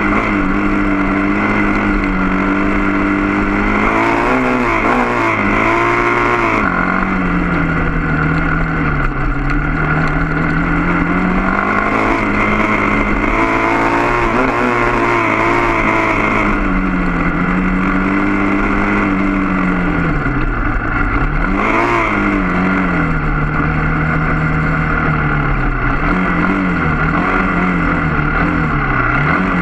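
Motorcycle engine heard from on board, running continuously, its revs rising and falling again and again with the throttle.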